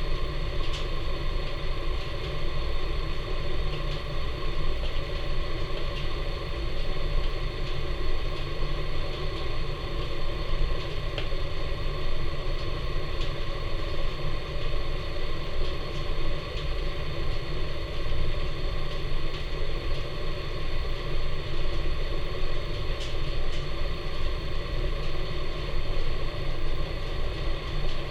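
Wood fire burning hard in the firebox of a Napoleon model 150 wood furnace: a steady rumble of draft drawn in through the open ash pan door, with a few faint crackles.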